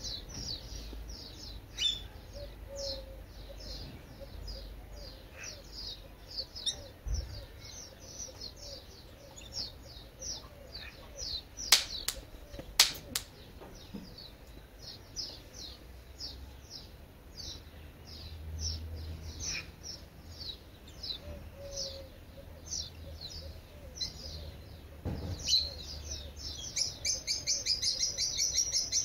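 A small songbird chirps over and over, about two or three short high chirps a second, breaking into a faster, louder string of chirps near the end. Two sharp clicks sound about halfway through.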